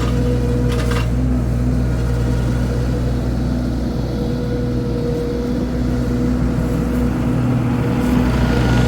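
Mini skid steer's engine running steadily at a constant pitch, with a couple of brief knocks about a second in.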